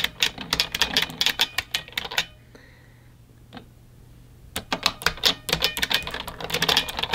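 Mechanical keyboard typing, a quick run of clacking key presses, a pause of about two seconds, then another fast run of clacks.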